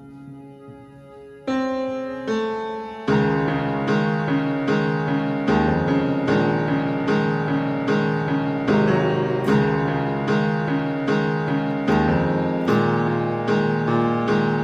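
Background music on piano or electric keyboard: it enters with a few single notes, then builds at about three seconds into a full, steady pattern of repeated chords, about two strikes a second.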